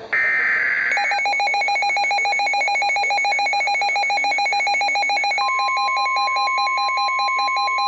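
Emergency Alert System alert tones: the last burst of the screeching digital header data, then a rapid electronic alarm beeping. About halfway in, the steady single-pitch weather-radio warning tone joins the beeping.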